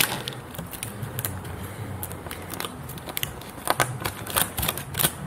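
Dry ginkgo wood shavings crackling and snapping as fingers pick them out of a chiselled groove, faint at first, then a quick run of sharp little clicks in the last second and a half.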